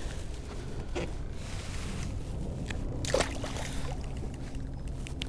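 A small splash about three seconds in as a released spotted bay bass drops back into the water beside the kayak, over a steady low rumble of wind and water.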